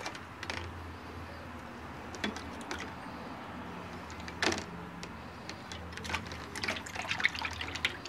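Liquid silver cleaning dip sloshing and splashing lightly in a plastic tub as a metal belt buckle is swished around in it by hand, with one louder splash about four and a half seconds in.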